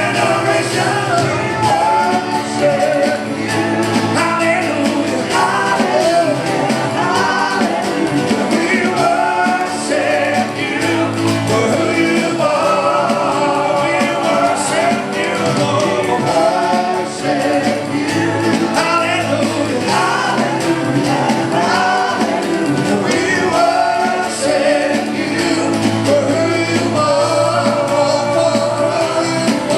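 Live worship music: a band playing with singing voices, steady and loud throughout.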